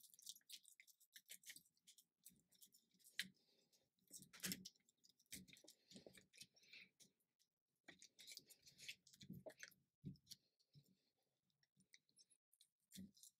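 Faint, irregular crackling and clicking as a MacBook Pro battery cell is pried loose from its strong adhesive with a pry tool, the glue peeling away from the aluminium case.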